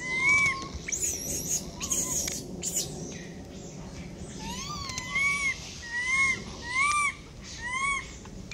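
A monkey giving short, arched coo calls, each rising and falling in pitch, repeated about six times in quick succession in the second half, with a couple more near the start.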